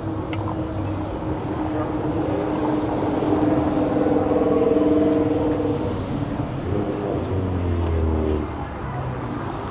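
City street traffic: a motor vehicle's engine hum grows louder to a peak around the middle, then drops in pitch as it passes and pulls away, over steady traffic noise.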